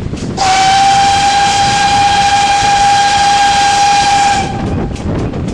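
Steam locomotive's whistle blowing one long, steady, single-note blast of about four seconds, starting about half a second in. Under it is the running noise of the moving train's carriages.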